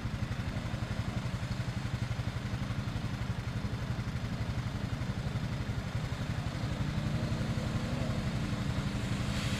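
ATV engine idling steadily with an even, rapid firing pulse, getting a little louder about two-thirds of the way in.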